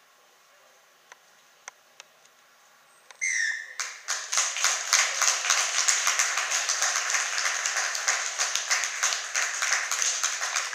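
Near silence broken about three seconds in by a short blast of a referee's whistle, then a crowd of spectators clapping steadily through the rest.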